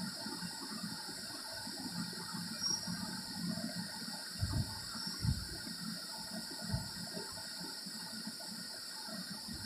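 Graphite pencil shading on paper, soft irregular scratching strokes, over a steady background hiss.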